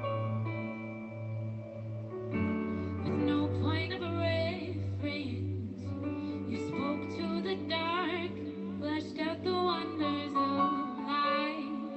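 Music: a slow song sung by a woman over sustained instrumental chords. The voice comes in about two seconds in, with a wavering vibrato on its held notes.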